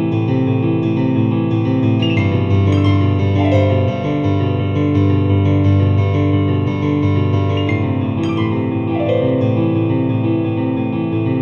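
Instrumental background music led by a keyboard, playing held chords that change every second or so.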